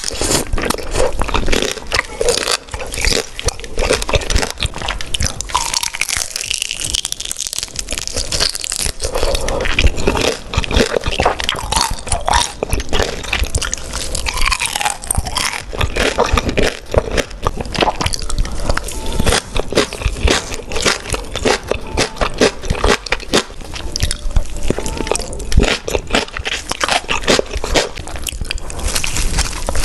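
Close-miked mouth sounds of a person biting and chewing beef large intestines: a dense, unbroken run of sharp, wet clicks.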